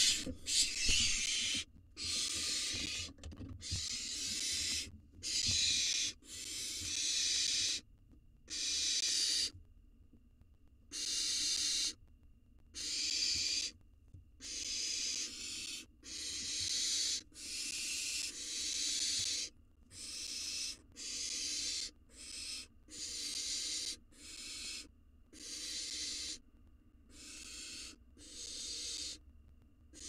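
Barn owl nestlings giving their rasping, hissing begging calls, one after another about once a second, with a brief pause partway through. The first hiss, right at the start, is the loudest.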